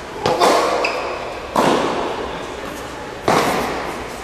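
Tennis balls struck with rackets in a rally on an indoor hard court, each hit a sharp pop that rings on in the hall. There are four pops: two in quick succession near the start, then two more about a second and a half apart. A short high squeak comes at about one second.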